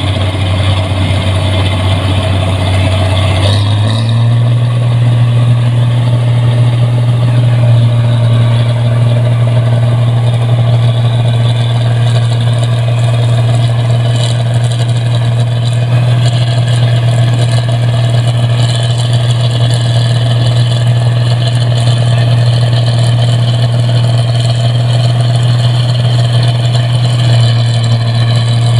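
Rice combine harvester's engine running steadily under working load, its hum stepping up in pitch about three and a half seconds in as the revs rise, then holding even.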